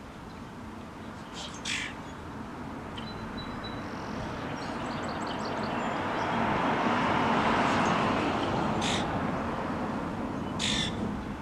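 Birds calling: three short, harsh calls, about two seconds in and twice near the end, with a few faint chirps between. A broad rushing noise swells in the middle and fades again.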